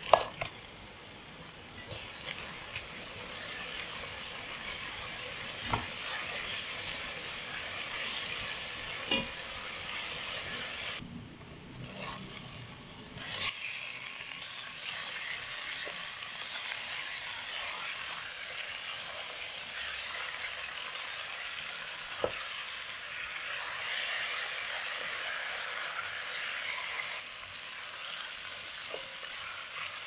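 Spice paste and chicken pieces sizzling in oil in a pot while being stirred with a spatula. There is scraping throughout and a few sharp knocks of the spatula against the pot, the loudest right at the start, and the sizzle breaks off briefly about eleven seconds in.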